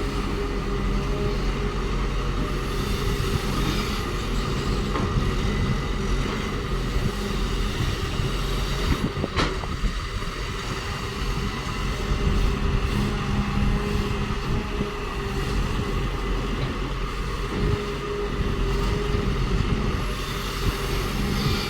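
Caterpillar excavator's diesel engine running steadily under load, its level rising and falling as it works, with one sharp knock about nine seconds in.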